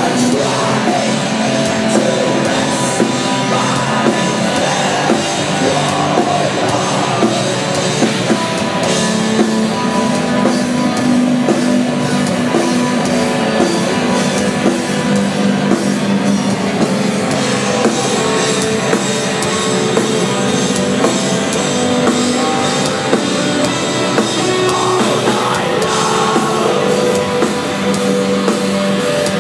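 Black metal band playing live at full volume: distorted guitars and drums running without a break, with vocals coming through at times.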